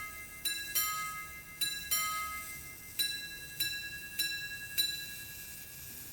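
Antique minute-repeater pocket watch striking the time on its two gongs. Two double ding-dong strikes on the two gongs mark the quarters, then four single strikes about 0.6 s apart mark the minutes, each note ringing away.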